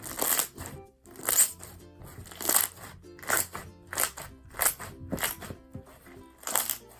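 Foam-bead slime being squeezed and pressed by hand, giving about ten crunchy crackling squelches, roughly one every half second to second, with bubble pops and clicks. Background music plays under it.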